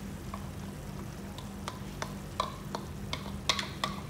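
Metal spoon scraping and clicking against a glass bowl as thick curry sauce is scooped out into a pan, over a light sizzle from the simmering vegetables. The clicks come irregularly and crowd together near the end.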